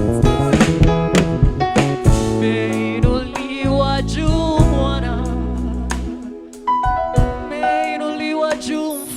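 Gospel worship music played by a band: held bass notes and drum hits, with a voice singing over them. The bass drops out about six seconds in.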